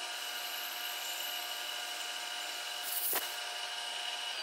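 Milling machine spindle running with a small end mill cutting across the face of a casting: a steady whine of several tones over a cutting hiss, with a short sharp noise about three seconds in.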